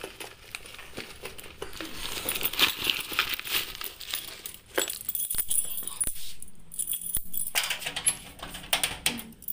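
A bunch of keys jingling and clinking as they are dug out and handled, in many quick metallic clicks, with a quieter stretch a little past the middle.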